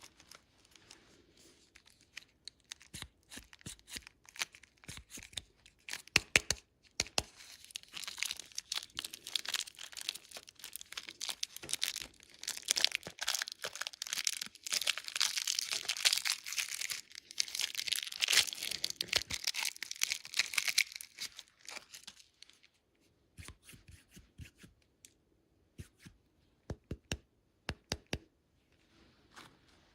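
Plastic candy wrapper being crinkled and torn open close to the microphone: a long stretch of dense crackling in the middle, with scattered sharp clicks and rustles before and after.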